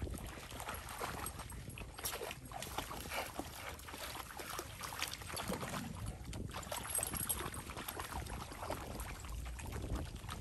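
Dogs wading in a shallow creek: irregular sloshing and splashing of water around their legs.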